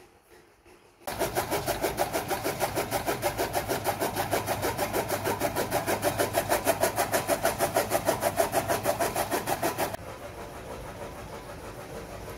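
Motor-driven fodder chaff cutter running while mustard greens are fed into it: a loud, rapid, even pulsing of the turning blade wheel. It starts abruptly about a second in, and near the end gives way to a quieter steady hum.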